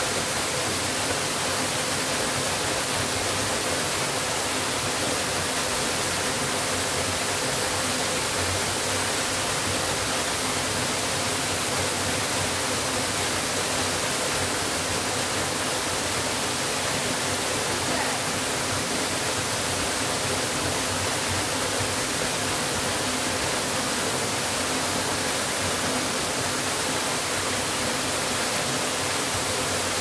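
Steady rush of falling water from a waterfall, an even, unchanging noise.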